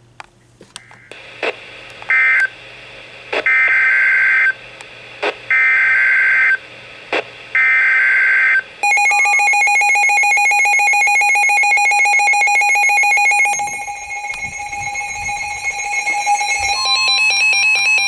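Emergency Alert System data signal from a NOAA Weather Radio broadcast. First come a few short screeching chirps, then three separate one-second bursts of the harsh digital screech that carries the next alert's header. About 9 seconds in, a steady, harsh alert tone begins. Near the end, a second, higher steady tone joins it: the weather radio's warning alarm.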